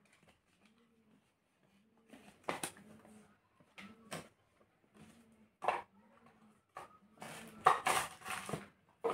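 Packaging being handled: irregular knocks, taps and short rustles, busiest near the end.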